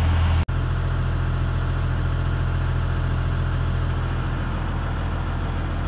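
Excavator engine idling with a steady low hum, broken by a short dropout about half a second in.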